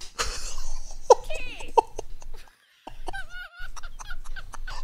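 A man laughing hard: loud, breathy bursts of laughter and gasps, with a short break about two and a half seconds in before the laughing picks up again.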